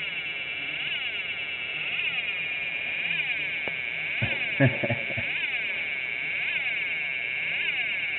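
Several DIY electronic sound kits buzzing and chirping all at once: a jumble of high electronic tones sweeping up and down over each other, with a brief louder burst a little past halfway.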